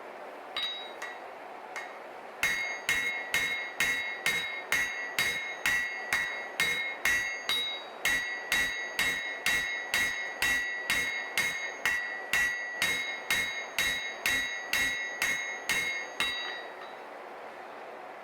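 Hammer blows on hot Damascus steel over an anvil as a knife blade is forged. A few light taps come first, then a steady run of hard blows at about two a second, each with a bright metallic ring. The blows stop about two seconds before the end.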